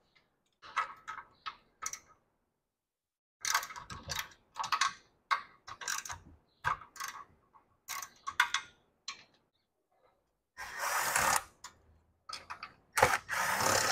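Scattered short metallic clicks and clatter of hand tools on the engine casing, then a cordless screw gun running twice, about a second each near the end, backing out the fan housing screws.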